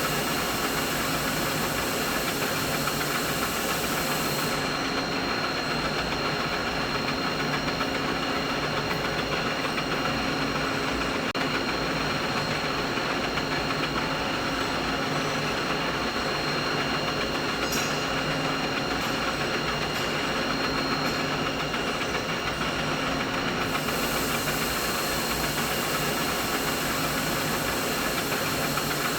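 Steady machinery noise: a continuous mechanical drone with hiss and a few faint steady tones running through it. The highest hiss thins out from about five seconds in until some five seconds before the end.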